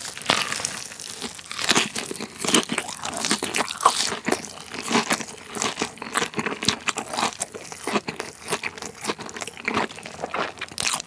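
A bite into a crispy breaded fried chicken cutlet, a Lotteria Jipai in habanero flavour, then chewing, with dense, continuous crackly crunching of the breading.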